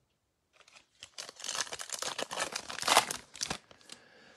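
Foil wrapper of a Playoff football trading card pack being torn open and crinkled, the crackling starting about a second in and stopping shortly before the end.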